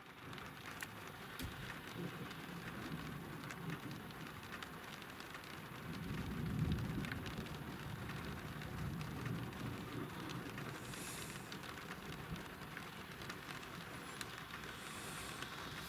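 Light rain falling on a car's roof and windows, heard from inside the car as a steady hiss with scattered drop ticks. A low rumble swells and fades about six seconds in.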